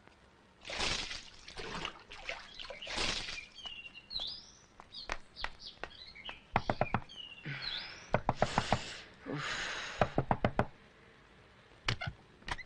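Rapid knocking on a wooden door, coming in several quick runs of about five or six knocks each from about six seconds in. Small birds chirp in the background.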